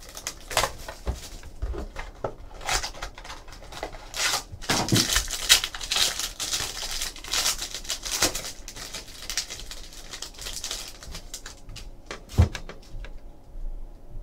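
Foil wrapper of a trading card pack crinkling and tearing open, amid quick clicks and taps of a cardboard box and cards being handled. The crackling is busiest in the middle and dies away about a second before the end.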